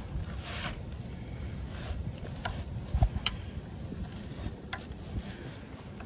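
A screwdriver tip scraping and picking packed mud out of a skid steer's oil drain plug recess: a series of short, uneven scrapes with a dull knock about three seconds in.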